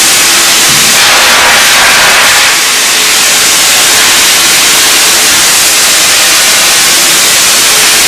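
Loud, steady rush of air through the hose of a Wieland industrial textile vacuum cleaner as it clears a pile of cotton fibres from the floor.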